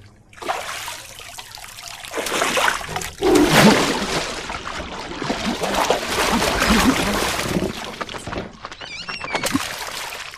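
Water splashing and sloshing hard in a glass fish tank as a man thrashes in it head first, in several long stretches. A short warbling high tone comes just before a last burst of splashing near the end.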